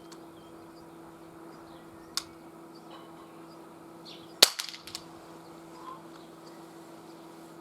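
Umarex Glock 22 CO2 BB pistol firing: a sharp crack about two seconds in, then a louder shot a little past halfway, followed by a brief rattle of smaller clicks.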